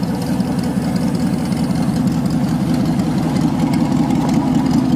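Pontiac Firebird's swapped-in 5.3 V8 idling steadily, left running to charge a battery that sounded weak on the cold start.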